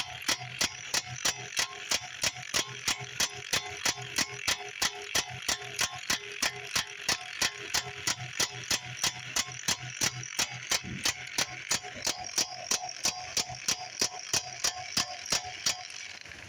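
A 12-volt impact wrench powered from a car battery hammers on a wheel lug nut in slow, even blows, about three a second, over the hum of its motor. The hammering stops near the end. The nut does not come loose: the wrench lacks the torque to break it free.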